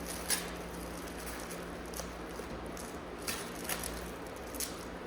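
A handful of light taps and clicks from handling a 1969 Cutlass bumper, scattered over a steady low hum.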